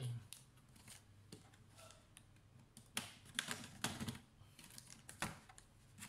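Sharp plastic clicks and taps of fingers working at the edge of a laptop's plastic bottom cover, a cluster of them about three to four seconds in and one more near five seconds.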